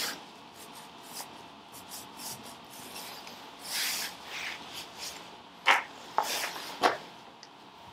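Faint scattered clicks and short scrapes of a screwdriver working on the two screws that hold the field core inside a dynamo body. The sharpest scrapes come near the end.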